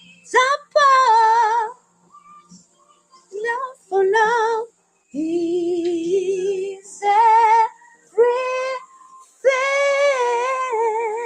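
A female voice singing wordless ad-lib phrases: held notes with wide vibrato and short runs, in bursts of about a second or two with brief pauses between them. The last note is held longest, about two seconds.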